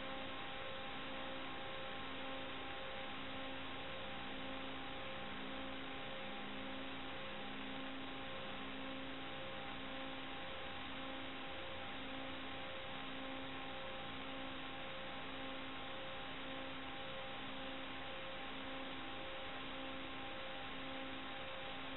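Steady radio hiss with a few faint steady tones and a low two-note beep that repeats about once a second, as heard on the audio of an analog FPV video link.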